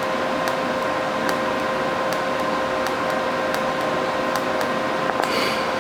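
TIG welding arc on metal: a steady buzzing hiss with a constant whine and scattered faint crackles, as pinholes left by MIG welding are melted shut. A brief burst of hiss comes near the end.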